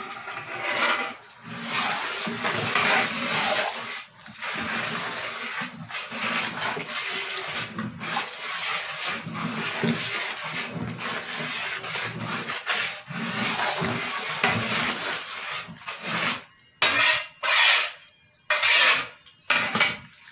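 Long metal ladle stirring and scraping through thick, simmering chana daal in a metal pot: a continuous rough scraping and sloshing with short breaks between strokes, then a few separate, louder strokes near the end.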